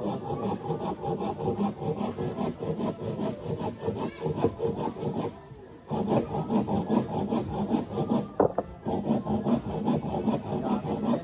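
Rhythmic back-and-forth rasping strokes on wood, several a second, like hand work on a wooden boat hull; the strokes stop briefly about halfway through and again a few seconds later.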